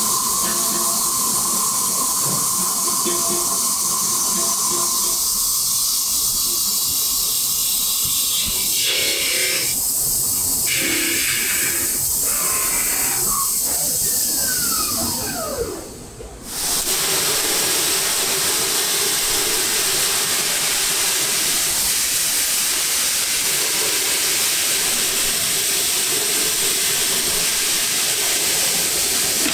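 CNC lathe turning a cast-aluminium wok body, with a steady hiss of coolant spray and a few steady machine tones; a whine falls in pitch about halfway through. After a brief dip, an even, steady hiss from a grit-blasting cabinet.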